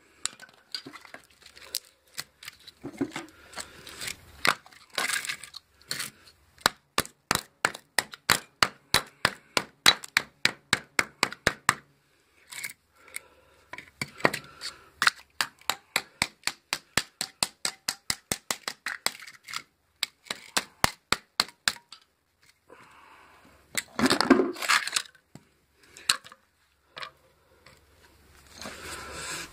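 Hammer striking a steel chisel wedged into a microwave transformer's laminated steel core: long runs of sharp metallic taps, about two or three a second, with a brief pause partway through. Near the end comes a louder crunching scrape as the core is pried.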